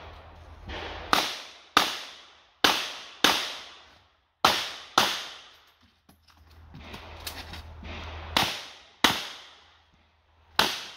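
Smith & Wesson 929 revolver firing 9x19 mm cast-bullet loads. Six shots come about half a second to a second apart, each with a reverberating tail. After a pause of about three seconds with a few faint clicks, three more shots follow, and another comes right at the end.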